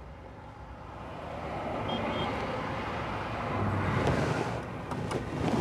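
Car's air-conditioning blower coming on inside the cabin with the engine idling: a steady rushing of air that grows gradually louder, with a few faint clicks near the end.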